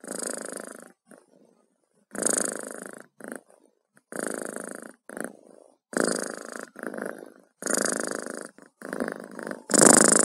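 A cat purring close to the microphone, in a breathing rhythm of purrs about a second long with short pauses between them.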